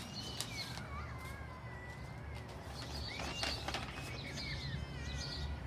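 Birds chirping and calling in the background: short high chirps and thin gliding whistles, over a steady low rumble.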